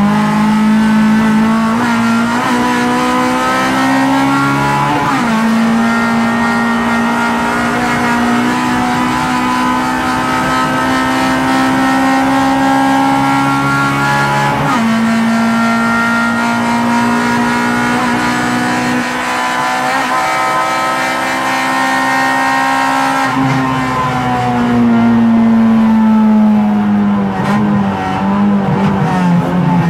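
Honda race car engine heard from inside the cockpit under hard acceleration: the engine note climbs slowly through each gear, drops sharply at gear changes about five and fifteen seconds in, then falls steadily over the last several seconds as the car slows.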